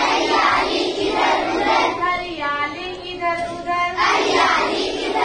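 A class of children singing a Hindi action song together in unison, with a woman's voice leading them; the group singing gets loudest near the start and again about four seconds in.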